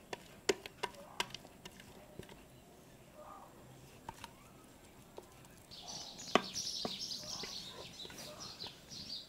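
Small birds chirping faintly in the background from about six seconds in, over a few light clicks and taps in the first couple of seconds.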